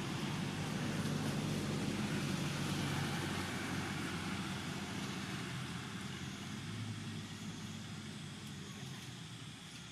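A motor vehicle's engine running with a steady low hum, gradually growing fainter.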